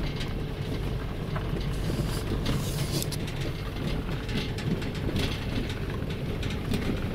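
Small car heard from inside the cabin, its engine and tyres making a steady low rumble while it drives slowly over a rough dirt track, with frequent small knocks and rattles from the body over the bumps.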